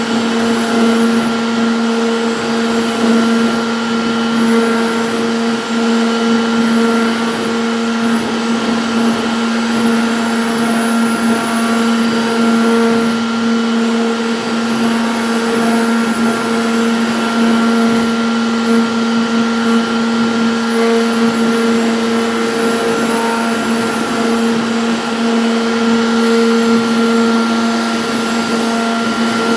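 CNC router spindle running at a constant high speed with a steady whine, over the hiss of the bit cutting MDF.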